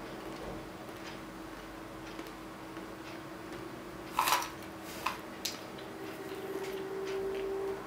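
Salted peanuts clattering in a metal can as it is tipped toward the mouth: one sharp rattle about four seconds in, then two small clicks. A steady low hum runs underneath, with faint regular ticks, and a steadier tone swells near the end.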